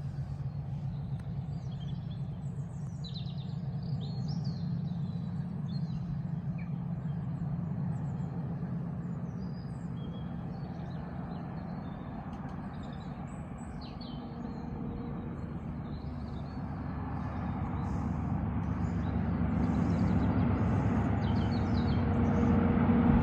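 English Electric diesel engines of a pair of Class 37 locomotives, a steady low drone growing louder as the train approaches, louder still near the end. Birds chirp over it, mostly in the first half.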